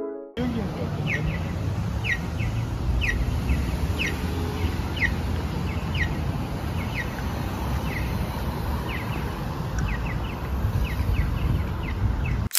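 Accessible pedestrian crossing signal chirping during the walk phase: short, high, falling chirps, often in quick pairs, repeating evenly about once a second. Under it runs the steady rumble of traffic at the intersection.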